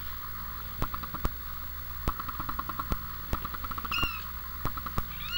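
Three-week-old kitten giving two short, high-pitched mews, one about four seconds in and one rising and falling near the end, over light clicking throughout.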